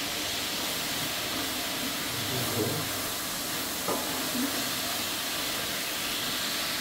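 Steady hissing from a pot of biriyani rice cooking on the stove while it is stirred with a wooden spoon, which gives a light knock against the aluminium pot about four seconds in.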